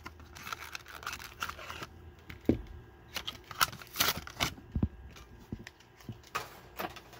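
A diecast car's blister card being opened by hand: the cardboard backing tears and the plastic blister crinkles and rustles as it is peeled away. Rustling at first, then many sharp plastic clicks and crackles, with two soft thumps about two and a half and five seconds in.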